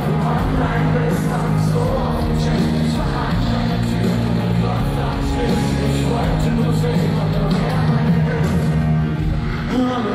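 A live band plays loudly in a large hall with a singer's voice over the music, heard from among the audience.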